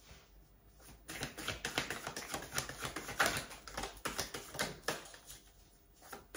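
A deck of tarot cards being shuffled by hand: a quick run of soft card-on-card clicks and rustles from about a second in, dying down near the end.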